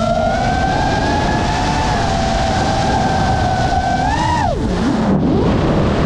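FPV drone's brushless motors and propellers whining steadily, with the pitch creeping up. About four seconds in the throttle is chopped and the whine drops sharply, then it is punched back up and the pitch climbs again near the end.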